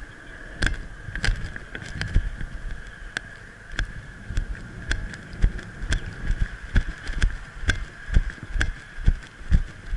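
Footsteps of a firefighter walking on a road, heard through a helmet-mounted camera as a regular thud-and-knock of boots and gear, nearly two a second. A steady high whine runs underneath.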